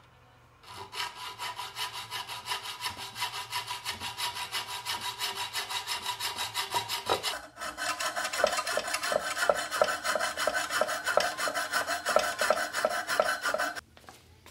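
Junior hacksaw cutting through the aluminum stiffener rib of a Devol radiator guard bracket held in a bench vise, with quick back-and-forth strokes. The sawing stops briefly about halfway through, then resumes louder and lower in pitch, and stops shortly before the end.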